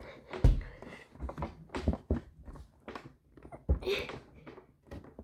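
A scatter of irregular thumps and knocks, with a short rustling hiss about four seconds in.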